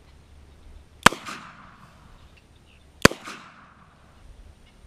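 Two handgun shots about two seconds apart, each a sharp crack followed by a short echo.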